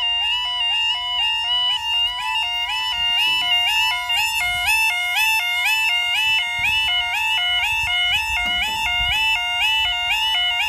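Level crossing audible warning alarm sounding: a two-tone warble stepping rapidly and evenly between a lower and a higher pitch without a break. It warns that a train is approaching and the barriers are coming down.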